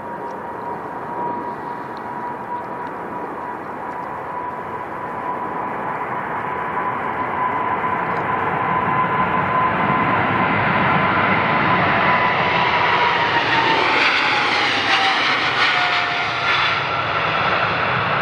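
Large jet airliner passing close by, its engine noise building to a peak in the second half, with a steady whine that drops in pitch as the aircraft goes past.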